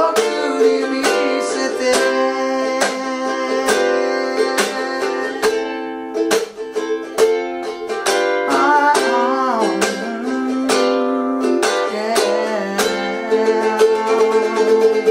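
Ukulele strummed in a steady rhythm of sharp chord strokes, with a man singing the song's last line over it. The chords move through C, G7, Am and F into the ending.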